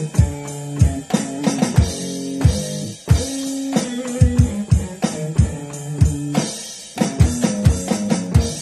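Blues groove: a guitar line over a steady drum-kit beat played on an electronic drum kit, with regular kick-drum thumps under it.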